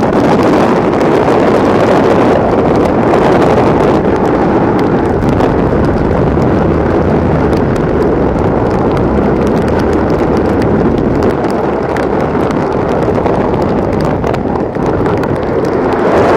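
Hurricane-force wind blowing loud and unbroken across the microphone, a dense rush with no letup.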